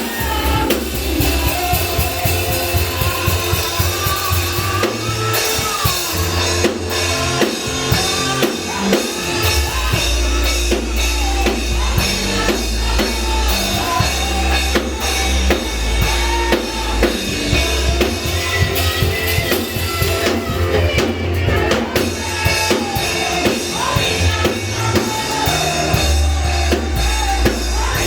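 Band music with a drum kit playing a steady beat over a deep bass line.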